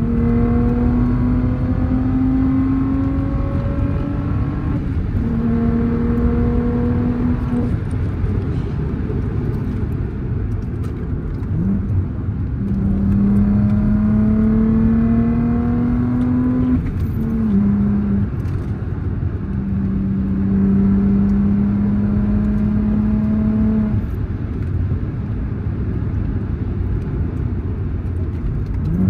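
Audi B5 S4's twin-turbo 2.7-litre V6 accelerating in the cabin, its engine note climbing slowly in four separate pulls with breaks between them, over a steady low road and engine rumble.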